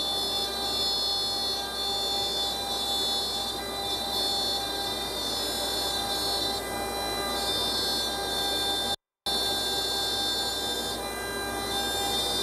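High-frequency spindle of a Forest HS Series CNC router cutting MDF: a steady high whine with the noise of the bit removing material, some of the high tones fading in and out every second or two as the head moves. The sound cuts out for a moment about nine seconds in.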